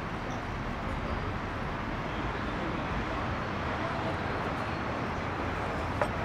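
Steady background noise of an open-air café with traffic. About six seconds in, a drinking glass is set down on the table with a single sharp clink.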